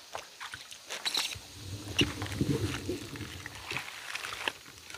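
Irregular splashing and rustling as someone wades in a shallow muddy ditch and reaches into the mud and grass, with scattered small knocks and rustles.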